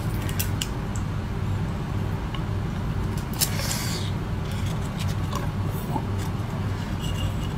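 A steady low hum, with a few faint wet clicks and squelches as the flesh of a large cooked sea snail is worked out of its shell.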